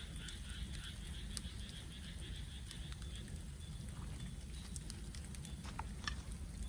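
Bamboo burning in a bonfire, crackling with scattered sharp pops over a low steady rumble. A rapidly pulsing high call runs through the first few seconds and fades out about three seconds in.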